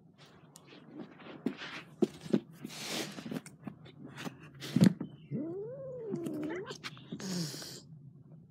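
Cats scuffling close to the microphone and hissing, with one drawn-out yowl about halfway through that rises and falls in pitch, then another short hiss.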